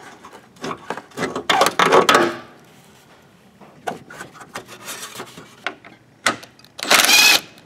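Hand tools scraping and clicking against metal while a radiator hose clamp is worked loose. Near the end comes a short, loud burst of rapid ratchet-wrench clicking as a radiator mounting bolt is turned out.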